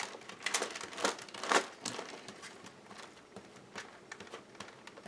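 Paper rustling and crinkling as collage papers are handled in a glue book, a run of short crackly rustles in the first two seconds, then fainter scattered ones.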